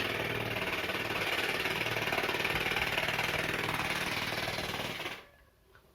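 Mouth imitation of a running generator engine: a steady, rattling engine drone that starts abruptly and dies away about five seconds in.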